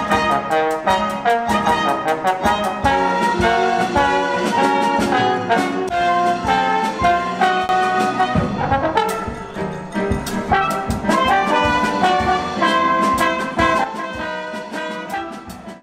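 Lively brass-led band music, trumpets and trombones over a steady drum beat, easing down in level near the end.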